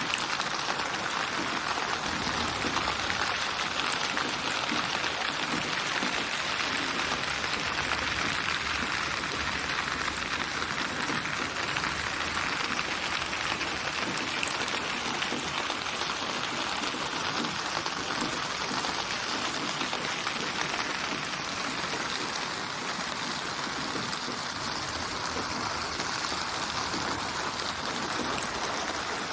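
Steady rain, an even hiss of many small drops with no single strikes standing out.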